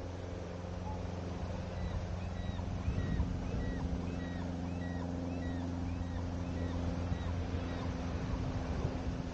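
Steady low motor drone, with a run of short high bird chirps, about two a second, from about two seconds in until near the end.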